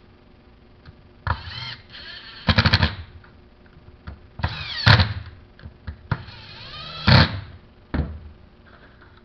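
Powered screwdriver with a T25 bit driving the screws back into an angle grinder's housing: four short runs, each rising and falling in pitch, one with a fast rattle, then a single click near the end.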